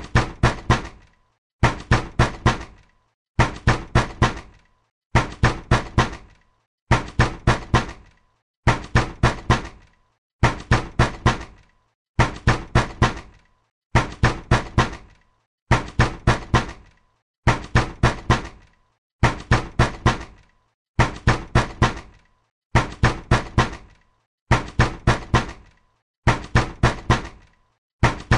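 Hard, angry knocking on a door: quick bursts of about four blows, repeated steadily about every second and three quarters.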